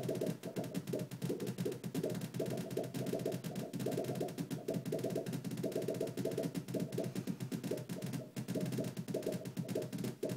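Chaotic oscillator circuit sounding through a speaker: a rapid, stuttering buzz that keeps changing in pitch and texture without settling into a pattern.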